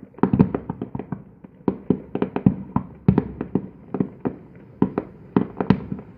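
Fireworks display: aerial shells bursting in a rapid, irregular string of sharp bangs and crackles, several per second.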